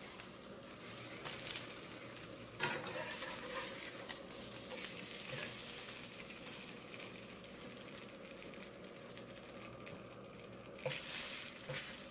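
Tortillas sizzling in a little oil in a nonstick frying pan, a steady hiss. A metal spatula scrapes and knocks against the pan about two and a half seconds in and again near the end as the tortillas are turned.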